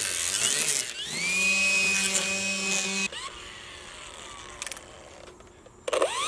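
Makita 18V brushless cordless string trimmer running: a steady whine of motor and spinning line whose pitch dips and climbs back early on. About three seconds in the whine cuts off and a faint tone falls away as the head winds down, then it spins up again with a rising whine just before the end.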